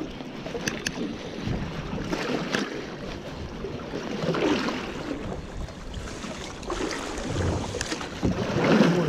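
Wind on the microphone and water sloshing against a small boat's hull, swelling louder about halfway through and again near the end, with a few scattered clicks.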